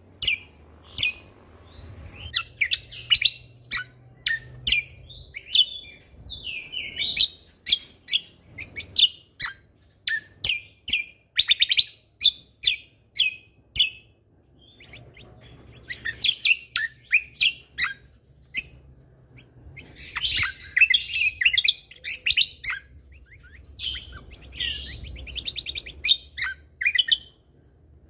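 Cucak kombo singing a lively, loud song of rapid sharp chirps and whistled notes in quick runs, with brief pauses and a fast trill near the end.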